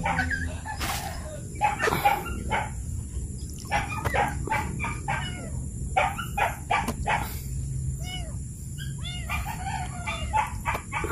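Chickens clucking and squawking in a rapid series of short calls, with a steady high hiss underneath.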